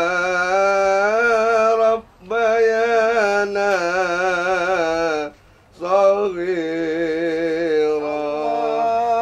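A man chanting an Arabic du'a in long, drawn-out melodic phrases with a wavering pitch. He breaks for breath about two seconds in and again a little after five seconds.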